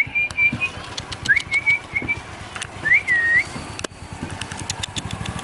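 A person whistling several short rising notes, each held briefly, to call a stray dog, with a few short clicks in between.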